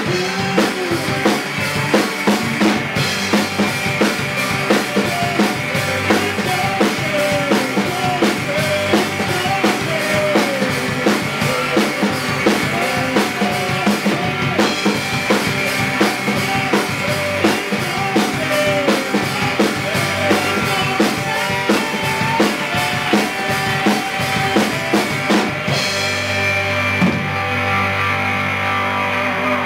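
Rock band playing an instrumental passage on electric guitar, electric bass and drum kit, the drums driving a steady beat. About 26 seconds in the drums stop and the guitar and bass are left ringing.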